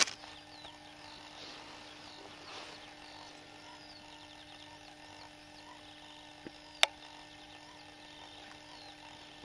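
Small birds chirping in a dawn chorus, with a faint steady hum beneath and one sharp click about seven seconds in.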